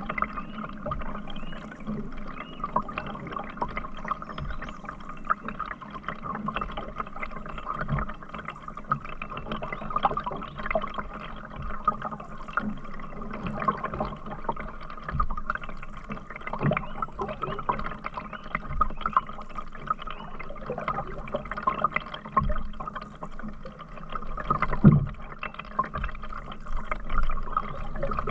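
Water around a canoe on a river: paddle strokes swishing, dripping and trickling in an irregular run, with a louder thump about 25 seconds in.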